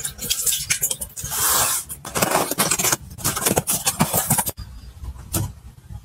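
Handling sounds: water from a running sink tap splashing as a wet cloth is wrung, then the crinkling and rustling of a cardboard box and bubble wrap being opened. The rustling stops abruptly after about four and a half seconds, leaving a few light taps and clicks.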